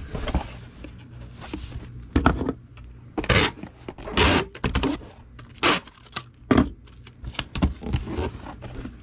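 Bubble wrap and a cardboard shipping box being handled while a model kit is packed: rustling and scraping in several short bursts, the loudest a few seconds in.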